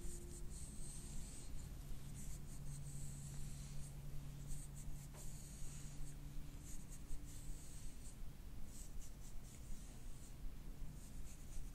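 Fingers rubbing and pulling through hair against the scalp during a scalp massage: soft, scratchy rustling in repeated strokes.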